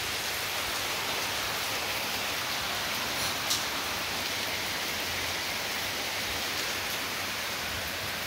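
Steady, even hiss like rain or heavy background noise, with one brief tick about three and a half seconds in.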